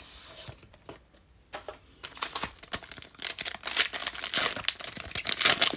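Crinkling and tearing of a trading-card pack wrapper being opened by hand. The crackling gets dense and busy from about two seconds in.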